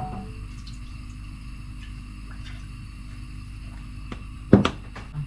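Low steady kitchen hum with a few faint clicks, then a sharp knock about four and a half seconds in as a soy sauce bottle is set down on the worktop.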